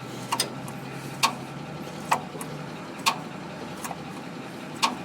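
Regular sharp clicks, about one a second, from strokes of the hand priming pump on a Caterpillar 977L's diesel fuel system, over a steady low hum. The pump is being worked to bleed air from the fuel system, but no fuel comes out of the bleeder.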